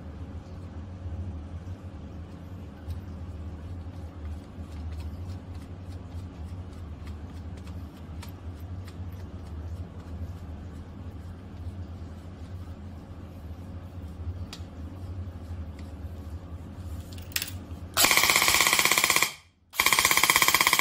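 Airsoft rifle fitted with an aluminium APS Sound Blaster muzzle, a sound-amplifying muzzle, firing two loud full-auto bursts near the end with a short gap between them. Before the shooting there is a steady low hum with faint clicks as the muzzle is handled and screwed on.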